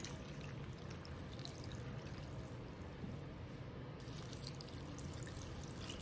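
White distilled vinegar pouring in a faint, steady stream over sliced cucumbers and sugar in a container, with light drips.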